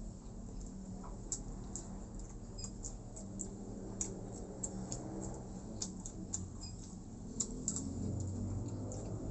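Close-up eating sounds: irregular wet smacking and clicking from chewing, several small sharp clicks a second.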